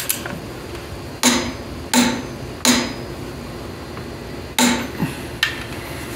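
Sharp metallic clacks, each with a short ring, from a torque wrench and socket on the timing-gear cap screws of a John Deere 400 engine. Three strong clacks come about two-thirds of a second apart a little over a second in, then another strong one and two lighter ones near the end.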